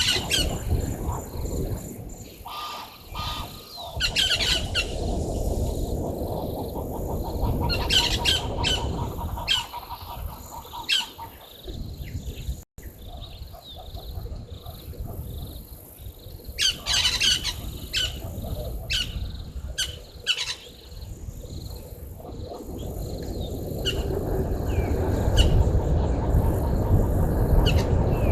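Wild birds giving short, harsh squawking calls again and again over steady low outdoor background noise.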